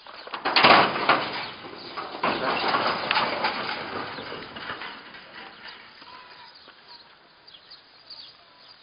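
Corrugated sheet-metal gate rattling and scraping in its steel frame as it is moved. It is loudest about half a second in and again from about two to four and a half seconds in, then dies away.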